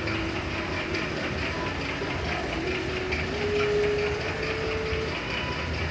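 First-generation VW Gol ('quadrado') running, with a rapid, steady tec-tec-tec ticking over the engine sound: the unexplained tapping noise the owner is asking about.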